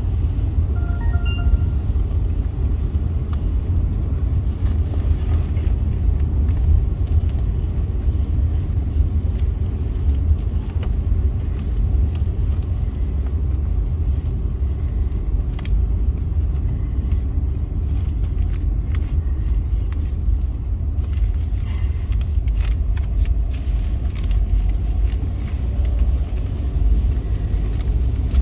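Steady low rumble of a car's road and tyre noise heard from inside the cabin while driving on a wet road, with scattered faint clicks.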